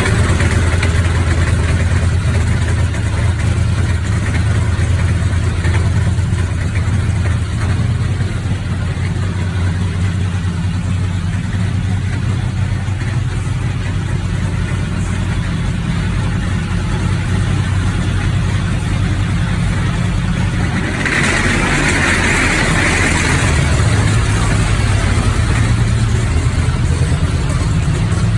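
Radial aircraft engine mounted on a custom hot rod, running with a steady low rumble. About 21 seconds in the rumble weakens and a hiss rises for a few seconds.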